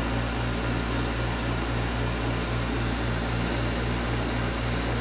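Heat gun blowing steadily: a low hum that pulses a few times a second under an even hiss. It is heating a saxophone key cup so that the shellac under the pad melts and the pad can seat.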